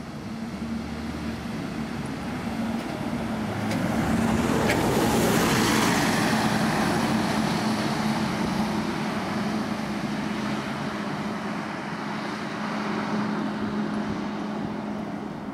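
Single-deck bus running with its engine cooling fan going: a steady low hum under a whooshing roar that grows louder about four seconds in as the bus draws close, then eases a little.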